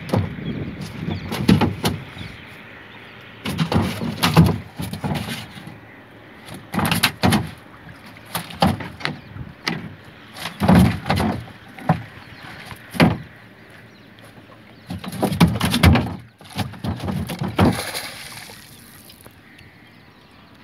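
Irregular splashing and knocking around a small plastic canoe, a burst every second or two, as the paddle works the water and a wet fishing net is hauled aboard.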